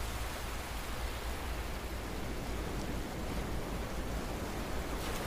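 Sea surf washing onto a beach: a steady, even hiss with no distinct wave crashes.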